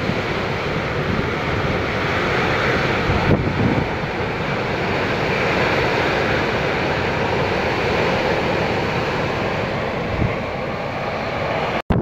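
Storm wind blowing in a loud, steady rush, driving snow across the ground. Just before the end the sound cuts out for an instant and comes back gustier, buffeting the microphone.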